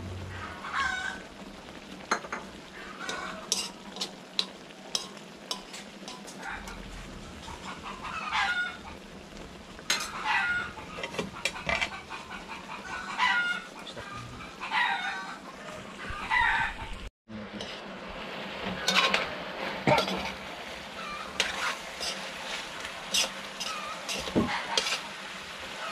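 Chickens clucking and calling in short repeated calls, over the sizzle of pork chops simmering in soy-and-Sprite adobo sauce in an aluminium wok. A metal spoon clicks and scrapes against the wok while stirring. The sound drops out for an instant about 17 seconds in, and the stirring and sizzling are louder after that.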